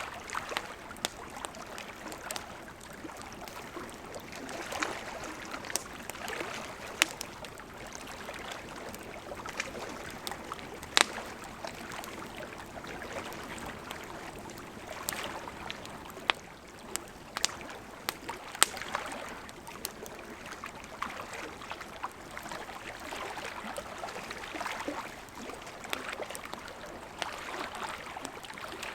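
Wood campfire crackling with scattered sharp pops, over a gentle, swelling and ebbing wash of lake water lapping at the shore.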